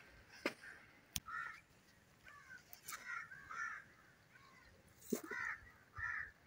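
Crows cawing: about half a dozen short, harsh calls in irregular bursts, with a few sharp clicks between them.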